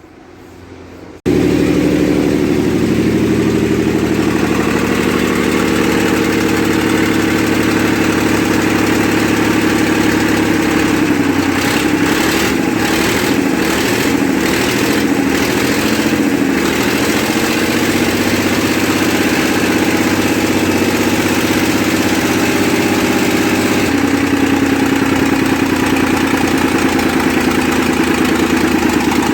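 Scania 111's six-cylinder diesel engine running loud and steady, its injection timing just set. The sound cuts in abruptly about a second in, and the engine note turns uneven for a few seconds in the middle before settling again.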